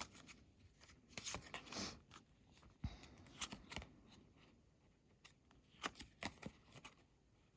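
Faint, irregular rustles and taps of a tarot deck being shuffled and handled while a clarifying card is drawn, in a few short clusters with pauses between.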